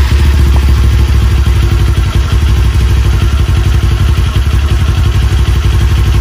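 Kawasaki Ninja 400's parallel-twin engine idling steadily through its stock exhaust muffler, without revving, just after a start. The owner calls the stock pipe's sound rather quiet.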